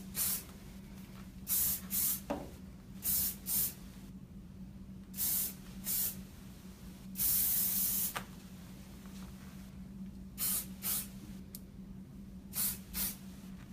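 Hairspray sprayed onto hair in short hissing bursts, mostly in quick pairs, with one longer spray of nearly a second midway.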